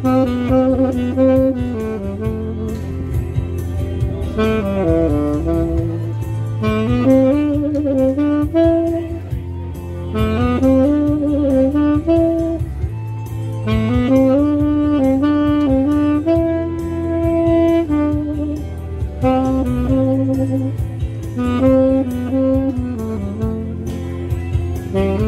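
Tenor saxophone playing a melody in phrases of long held notes, over a steady low bass backing.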